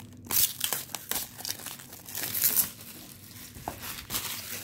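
Plastic wrap crinkling and being torn and crumpled as a sealed trading-card wax box is unwrapped, in several irregular bursts of rustling.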